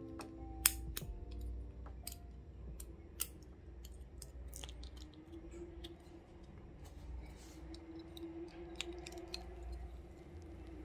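Irregular sharp plastic clicks of keycaps being pulled off and pressed onto a mechanical keyboard's switches.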